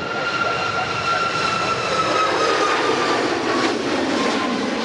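Airliner's engines running loud as the aircraft passes, a rushing noise with a high whine that slowly drops in pitch.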